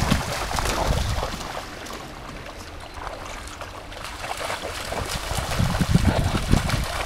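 Splashing and sloshing of black Groenendael dogs and a person running through shallow lake water. The splashing dies down about two seconds in and builds again from about four and a half seconds.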